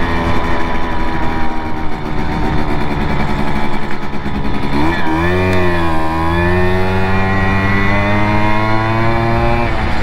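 Simson two-stroke moped engine running under way. Its pitch dips and comes back about five seconds in, then holds steady and rises slowly before dropping again at the end.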